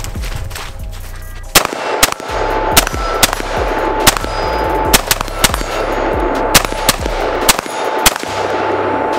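Custom AR-15-style rifle firing about ten shots at an uneven pace, often in quick pairs, starting about a second and a half in. Background music plays underneath.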